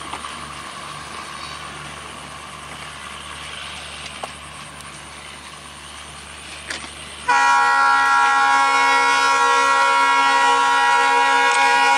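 Faint rumble of a receding diesel train. About seven seconds in, a train horn starts suddenly, loud and steady with several tones sounding together, and holds until it cuts off near the end.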